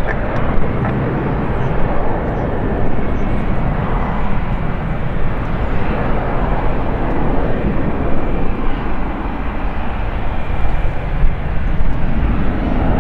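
Jet airliner engines running at high power, a loud, steady roar that swells and eases a little.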